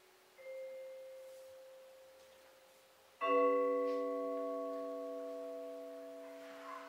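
Vibraphone: a single struck note, then a little over three seconds in a louder chord of several notes that rings on and slowly fades.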